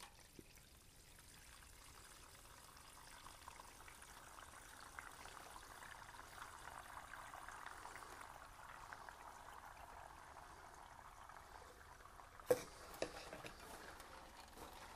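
Faint trickle of water poured from two plastic pitchers into perforated cups, raining down inside clear plastic cylinders onto soil. It builds over the first few seconds and fades away, then two short knocks come near the end.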